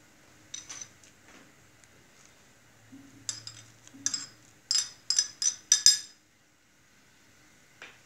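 Metal utensil clinking and scraping against a ceramic plate while shredded boiled chicken is pushed off it into a pan of stock: a few light clicks, then a quick run of sharp clinks in the middle, the last ones loudest.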